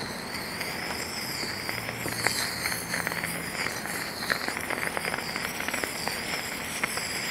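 Potassium reacting with the water in a jar of cola and burning with a flame at the surface: a steady sizzling hiss with rapid crackles and a few sharper pops.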